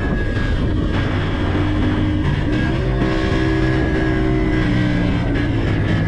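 Sport motorcycle running at a steady road speed, with wind rushing over the microphone, under background music whose held notes change every second or so.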